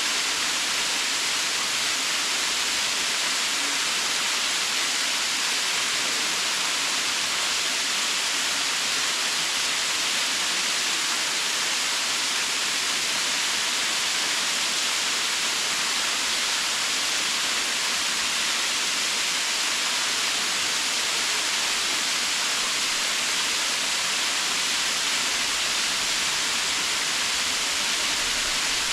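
Cathedral Falls, a waterfall, pouring steadily: an even hiss of falling water, strongest in the upper range, with no change in level.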